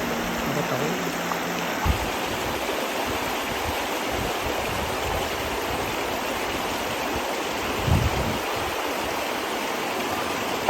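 River water rushing steadily, with a low thump about two seconds in and another about eight seconds in.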